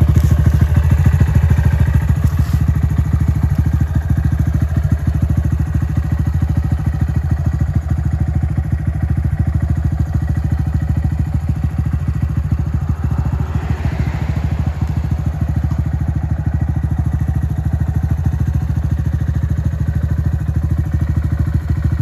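Honda Grom's 125 cc single-cylinder four-stroke idling steadily through an aftermarket Yoshimura exhaust, with an even, rapid thump of firing pulses.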